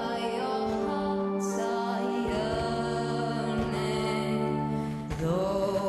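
Music with long held notes over a steady low tone, with the pitch sliding up into new notes near the start and again about five seconds in.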